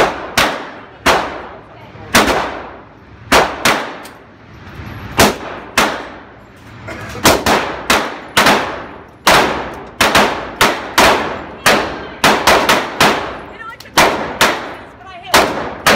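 Handgun shots on an indoor range, fired from neighbouring lanes, about two a second at uneven spacing, sometimes in quick runs of two or three. Each sharp crack is followed by a short ringing echo off the range walls.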